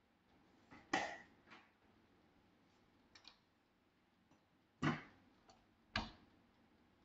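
A few sharp clicks or knocks at uneven intervals: a loud one about a second in, two more loud ones near five and six seconds, and fainter ticks between them.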